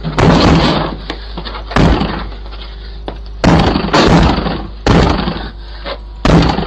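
Repeated loud bangs and crashes, five or so, some ringing on for up to a second, from a forced break-in attempt at a house's door. They are picked up by a doorbell camera's microphone over its steady low hum.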